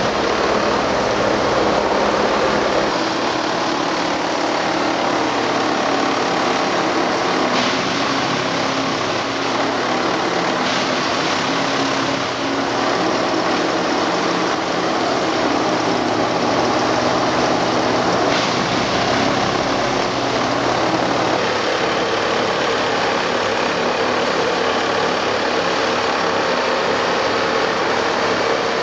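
Plasser & Theurer 08-32 Unimat 4S track tamping machine working on a railway switch: its engine, hydraulics and vibrating tamping tines run steadily as the tines go down into the ballast and lift out again.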